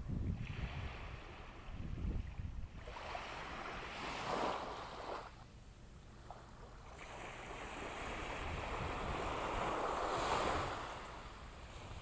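Small waves washing up on a sandy beach: a soft hiss of surf that swells twice, the second wash building for several seconds and peaking near the end before it eases. Wind rumbles on the microphone at the start.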